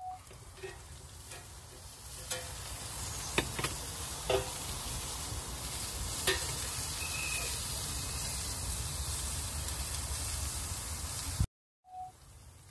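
Black Angus spider steaks sizzling on a hot grill, with a steady hiss that builds over the first few seconds. A few short metal clinks and knocks come in the first half, the sharpest about three and a half and six seconds in.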